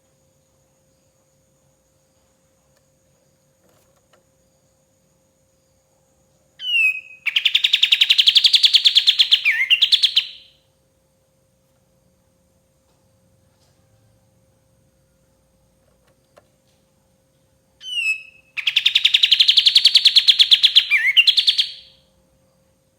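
Kapas tembak bird singing two bursts about eleven seconds apart: each opens with a couple of short sliding notes, then runs into a fast, rapid-fire chattering trill lasting about three seconds.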